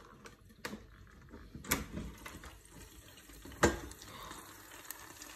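Air fryer basket pulled out by its handle: a couple of light clicks, then a loud clunk about three and a half seconds in as the basket comes free. A faint sizzle from the hot chicken follows.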